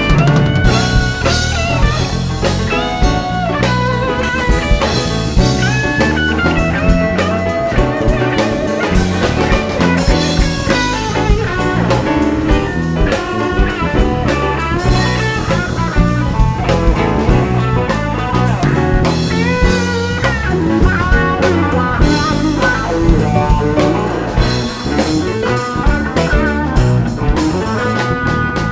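Live blues band playing: a Stratocaster-style electric guitar takes an instrumental solo with bending notes over a drum kit.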